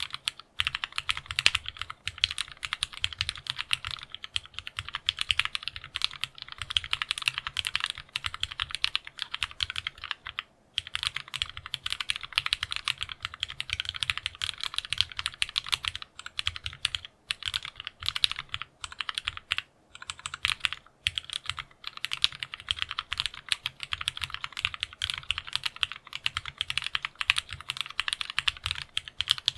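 Continuous fast typing on a TGR × Linworks Dolice custom mechanical keyboard with polished, lubed Cherry MX Black Hyperglide linear switches on a polycarbonate plate, no foam, and PBT Dolch keycaps. A steady stream of keystroke clacks, with a few brief pauses near the middle.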